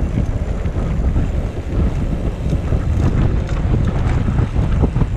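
Wind buffeting the microphone of a camera riding on a recumbent trike as it rolls along a dirt trail: a steady, heavy low rumble, with scattered small clicks and rattles over the second half.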